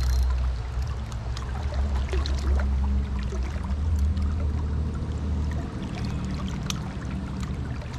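River water rushing by, with a steady low rumble and small scattered splashes.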